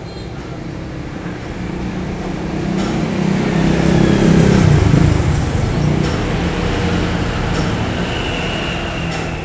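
Motor vehicle engine running, growing louder to a peak about halfway through and then easing off.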